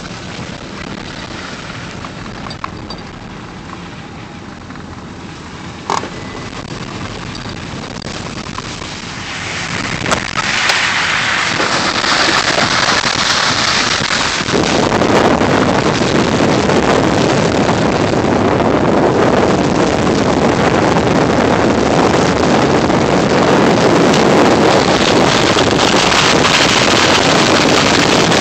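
Vehicle driving a muddy dirt road: a steady rumble of engine and tyres with one short knock about six seconds in, then from about ten seconds in the noise swells into a loud, steady rush of wind and tyre noise as the microphone moves to the open side window.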